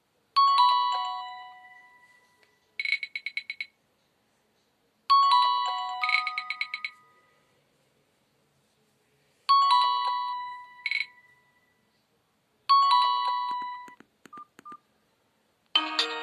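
Alcatel 20.01X mobile phone playing its preloaded electronic alert tones: four times, a few seconds apart, a short descending chime that rings out and fades, each followed by a brief run of quick beeps. Near the end a busier, many-note ringtone melody starts.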